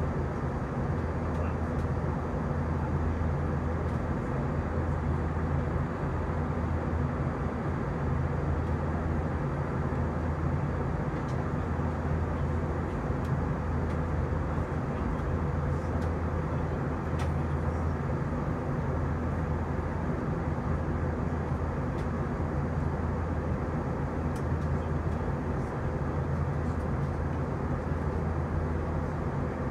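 Cabin noise inside an Airbus A321 airliner in flight: a steady low drone of jet engines and rushing air, with a few low hum tones under it and no change throughout.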